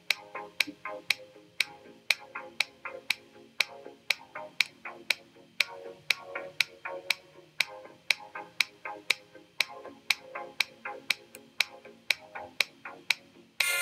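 Background music with a sharp ticking beat, about two ticks a second, over soft sustained notes. Near the end it switches abruptly to a louder, brighter passage.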